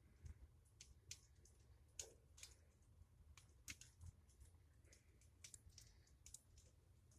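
Fire in a fireplace crackling faintly, with irregular small snaps and pops, a louder pop about two seconds in, over a faint low rumble.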